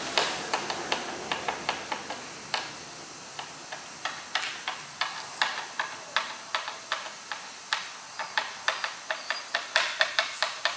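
Phillips screwdriver turning screws down by hand through a kayak bow-mount plate, a steady run of sharp clicks, about two to three a second. The screws are a tight fit in their holes.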